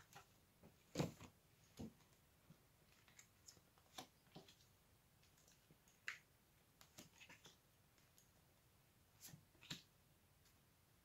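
Faint, scattered clicks and taps of a deck of cards being handled and cards laid down on the table.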